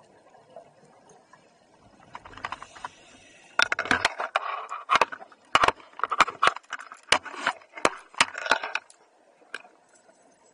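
Scuba divers' exhaled air bubbles crackling and rushing past an underwater camera in irregular bursts. The bursts begin about two seconds in, are loudest for about five seconds, then fall back to a faint underwater hiss.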